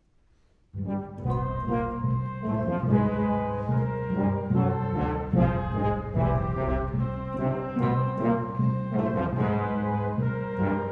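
Concert orchestra with prominent brass (trombones, trumpets, horns) and timpani entering loudly together just under a second in, after near silence, and playing a forceful passage of held brass chords punctuated by accented strokes.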